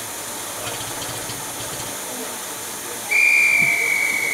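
Steam locomotive hissing steadily as steam escapes low around its running gear. About three seconds in, a whistle starts: one loud, steady, high note that holds.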